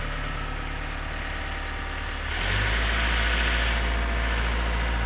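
Diesel engine of a Lovol tracked construction machine running steadily, then throttled up about two and a half seconds in, getting louder and deeper with added hiss as the operator puts it to work.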